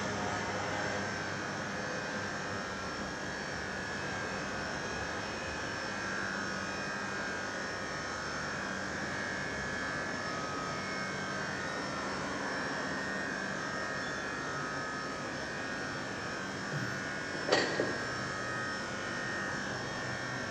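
Steady mechanical humming drone with a few held tones, and a short sharp sound about seventeen and a half seconds in.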